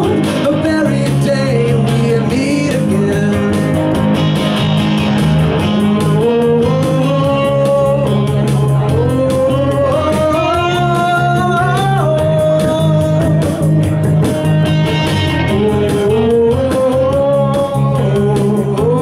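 A duo's song played with a drum-machine beat and bass under a lead melody line that slides and bends in pitch; no words are sung.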